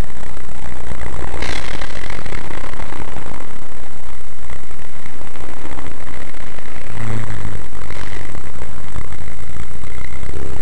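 Loud, steady road and engine noise inside a moving car's cabin, picked up by a dashcam microphone. It is interrupted by two brief louder rushes, about a second and a half in and again about eight seconds in.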